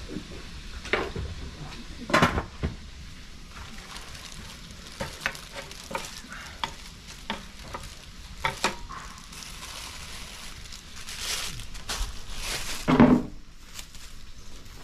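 Food frying with a steady sizzle, while utensils clink and knock against the pan. The loudest knocks come about two seconds in and near the end.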